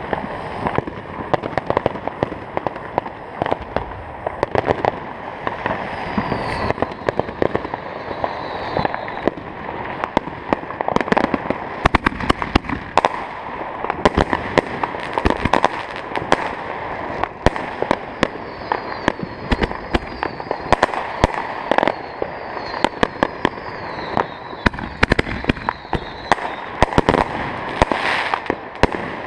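Fireworks going off: a long, dense run of rapid firecracker bangs and crackling, with a few faint falling whistles now and then.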